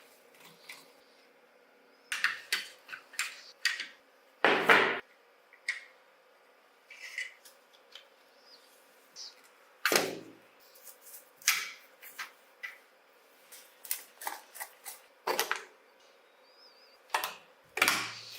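Workshop hand-tool work: irregular sharp clicks and metallic knocks, with four heavier knocks spaced a few seconds apart, over a faint steady hum.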